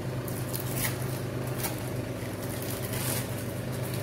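A steady low background hum with a few faint, light clicks or rustles.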